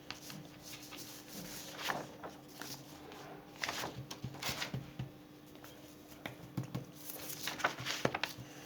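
Faint rustling and soft handling noises with a few light clicks, over a faint steady hum.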